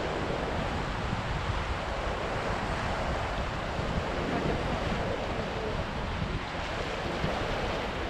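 Ocean surf breaking over rocks and washing up a sandy shore: a steady rush of waves. Wind rumbles on the microphone underneath.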